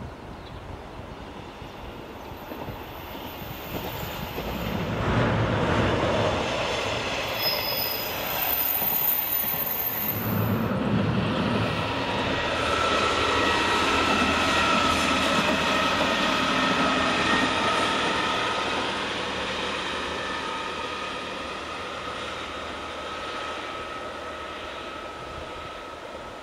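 A HOT3500 series diesel railcar passing on its rails: the running noise builds, peaks about halfway through and then fades as the car pulls away. High-pitched wheel squeal comes through at times, and a steady whine sits under the later part.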